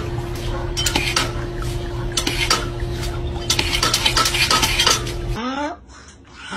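Rapid clicking and clattering over a steady hum, stopping abruptly about five seconds in. Then a pug gives two rising whining cries during her bath, calling for help.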